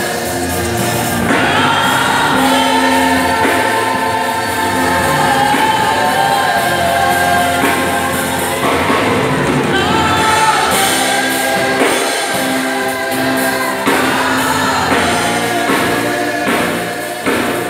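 Live gospel worship music: a group of singers on handheld microphones singing together over instrumental accompaniment, amplified through the church sound system.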